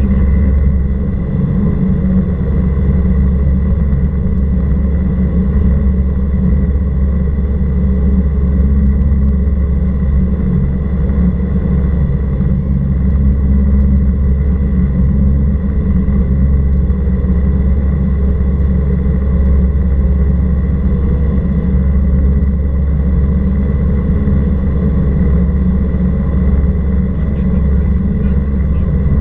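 Cessna 172R Skyhawk's four-cylinder Lycoming engine and propeller droning steadily in flight, a constant low hum with a thin steady whine above it.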